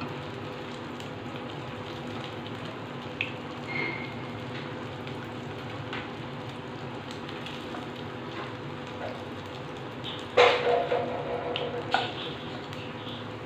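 Potato wheels shallow-frying in hot oil: a steady sizzle with scattered crackles. About ten seconds in, a wooden spatula knocks against the pan, and again a little later, as the fried wheels are lifted out of the oil.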